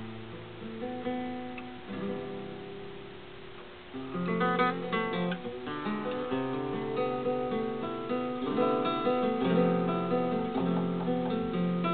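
Acoustic guitar playing a song's introduction, quiet at first and fuller and louder from about four seconds in.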